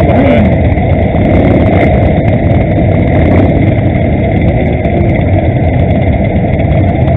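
Many motorcycles, mostly cruisers, idling together at close range, a loud and steady engine noise.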